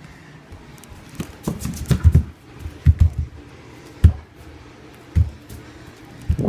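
Irregular dull thumps of bare feet stepping and running on a tiled floor, about a dozen at uneven spacing, some with a light knock or click on top.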